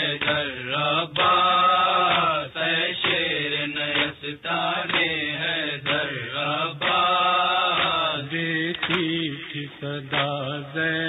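A noha, a Muharram lament, chanted by a single voice in long held phrases that waver in pitch.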